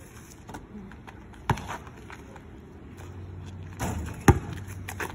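A basketball hitting hard surfaces twice: a sharp knock about a second and a half in, and a louder one near the end.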